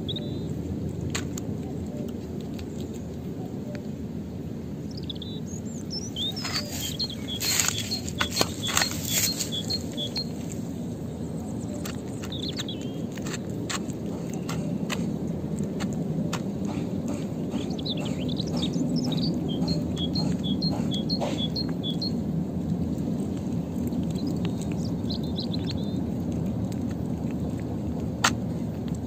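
A cat eating from a plastic bowl close by: wet chewing, lapping and smacking clicks, busiest about a third of the way in, with one sharp click near the end. Small birds chirp behind it, each time a quick run of repeated high notes.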